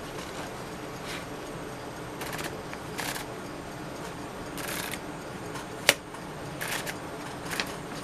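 1959 Smith-Corona Silent-Super manual typewriter being worked: a handful of short, rattling mechanism bursts, with one sharp, louder click about six seconds in.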